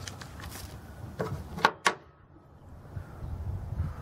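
A few sharp plastic clacks and knocks, about a second and a half in, as a hummus tub and a metal spoon are handled on a table. A low rumble follows near the end.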